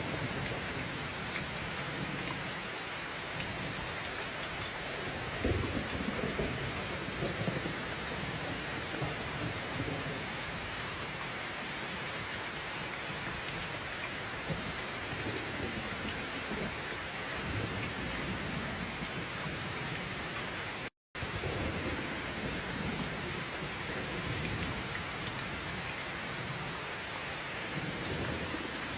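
Steady rain with low rumbles of thunder now and then. The sound cuts out completely for a split second about two-thirds of the way through.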